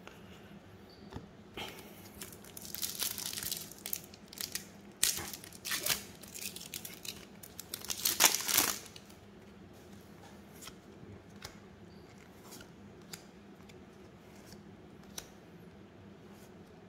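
Trading-card pack wrapper being torn open and crinkled in a run of irregular rustling bursts, loudest just before they stop about halfway through; after that only a few faint light clicks.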